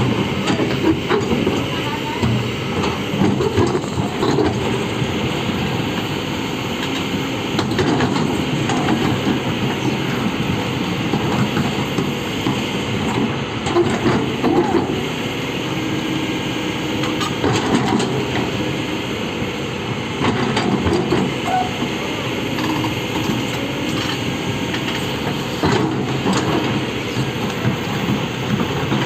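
Heavy excavator running under load, with continual metallic rattling and clanking of its tracks and machinery.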